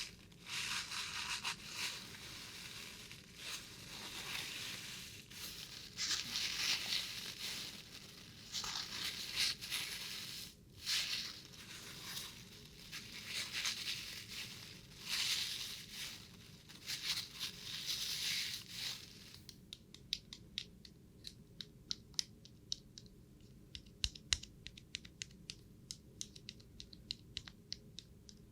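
Crinkling, scratchy handling noise in uneven swells, giving way about two thirds of the way in to a quieter run of small, sharp, irregular clicks.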